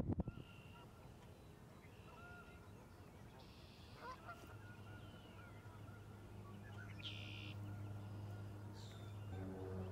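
Faint calls of distant wetland birds, a few short notes scattered through. A low steady hum comes in about halfway and grows louder toward the end.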